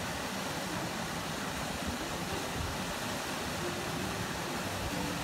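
Steady rush of a small waterfall spilling into a rock pool.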